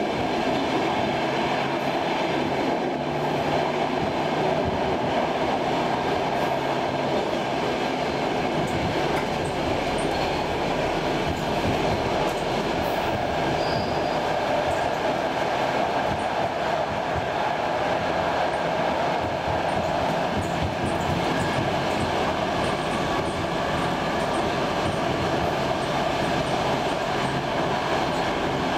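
Steady running noise heard inside a Class C10 electric train at speed: an even rumble and hiss of the wheels on the rails, with no pauses or changes in level.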